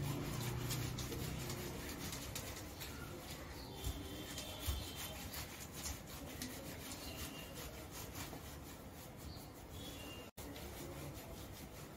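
Hands rubbing and scrubbing a wet dog's coat, a continuous rustling rub of repeated strokes, with two brief low thumps a little after four seconds in.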